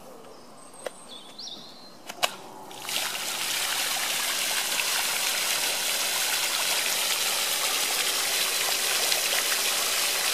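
Two sharp clicks as a waterproof mains plug is pushed together, then about three seconds in a 250-watt floating pond aerator fountain starts up, its spray of water falling back onto the pond in steady splashing.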